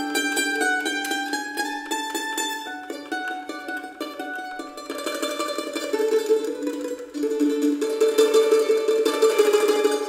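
Instrumental background music led by a plucked string instrument picking quick, repeated notes.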